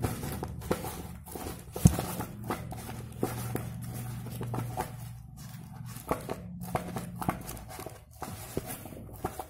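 Dried corn husks and a paper cone being handled and pressed together on a wooden table: rustling and crinkling with light clicks, and one sharp knock about two seconds in.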